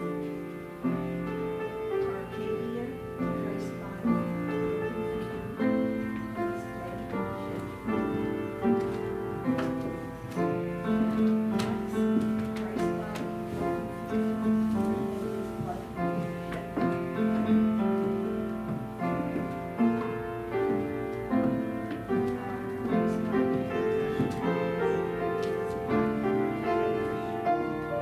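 Piano playing slow music, chords and melody notes sounding about once a second and ringing on between them.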